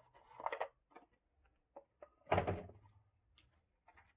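Handling noises from unpacking a small microphone accessory kit: short rustles and light clicks, with a louder knock about two and a half seconds in.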